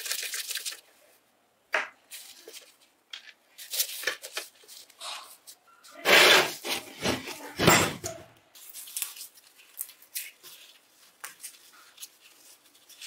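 Gloved hands handling and rubbing a rusty bench grinder's motor housing and steel base: scattered rustles and scrapes, loudest around six to eight seconds in.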